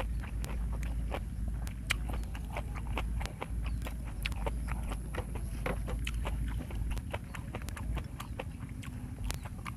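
Close-miked mukbang chewing, with irregular wet mouth clicks and lip smacks several times a second, over a steady low rumble.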